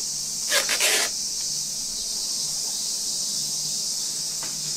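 Steady high-pitched shrilling of summer cicadas, with a short run of rasps about half a second in from the zipper of a hanging mesh drying net being pulled shut.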